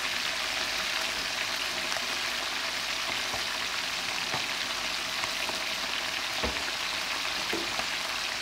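Chicken pieces deep-frying in hot oil in a wok: a steady crackling sizzle. The chicken is still pale, early in its frying. A soft knock comes about six and a half seconds in.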